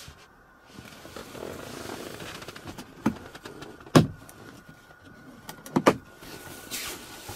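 A series of sharp clicks and knocks inside a car's cabin, the loudest about four seconds in, with a soft rustle between them.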